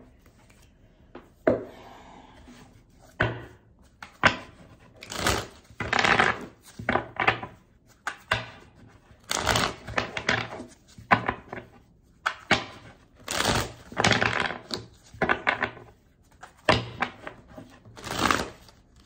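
A deck of tarot cards being shuffled by hand: a long run of short papery riffles and rustles, a few a second with short pauses between them.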